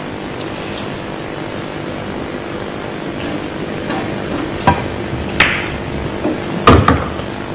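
A pool shot: a sharp click of the cue tip hitting the cue ball, then hard clacks of billiard balls striking each other and the table, the loudest pair near the end. A steady hum of the hall runs underneath.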